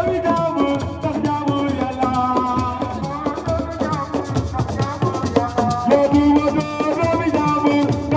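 Senegalese assiko music: a voice singing long held, gliding notes over busy hand drumming and a rattling shaker.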